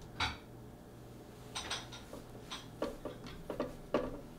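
Scattered light clicks and taps, about eight in a few seconds, from fingers and hand handling a Caliburn foam-dart blaster while greasing the inside of its plunger tube with KY jelly.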